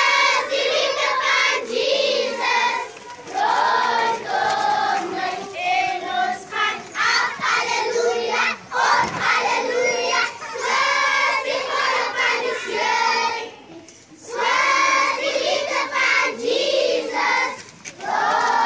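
A large group of children singing a song together in sung phrases, with short breaks between some lines.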